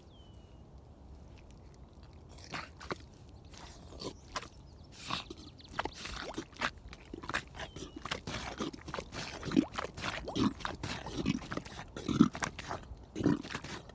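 Baffin rubber boots squelching and sucking in deep wet mud as the feet shift and work in it. Irregular wet squelches and pops, sparse at first, start about two and a half seconds in and grow louder and more frequent, with heavier low squelches in the second half.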